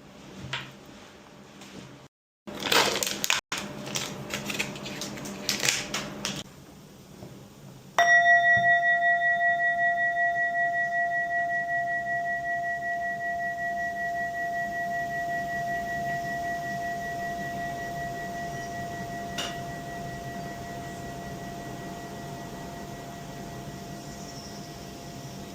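A bell struck once about eight seconds in and left to ring, its tone fading slowly with a slight wavering. Light rustling and clicks come before the strike.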